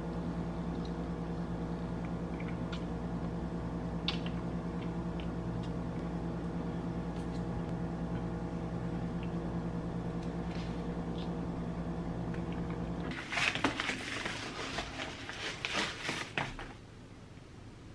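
A steady machine hum with several even tones, which cuts off suddenly about 13 seconds in. A padded paper mailer envelope then crinkles and rustles for a few seconds as it is handled.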